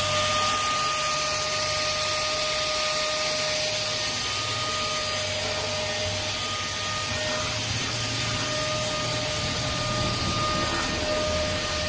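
Cordless handheld mini vacuum cleaner running steadily: a rush of air with a steady whine from its small motor.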